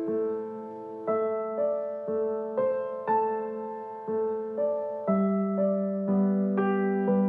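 Soft background music: a slow melody of struck keyboard notes, roughly one every half second, with lower, fuller notes held in the last couple of seconds.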